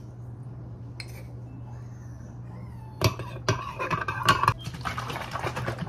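Dishes and kitchen utensils clinking and clattering on a counter in a dense burst that starts about three seconds in, over a low steady hum.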